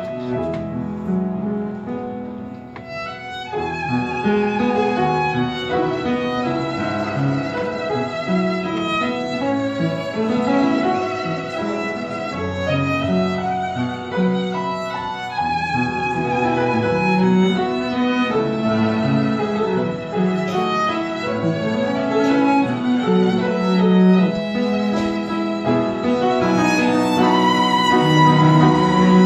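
Piano trio playing a hymn arrangement: the violin carries the melody with vibrato over cello and upright piano, the sound thinning briefly about two seconds in before the violin line comes in.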